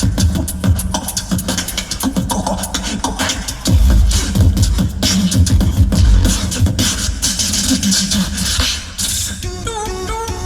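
Tag-team beatboxing, two performers: rapid vocal kick and snare clicks, a heavy deep bass line coming in about four seconds in, and a sung, wavering melody over the beat near the end.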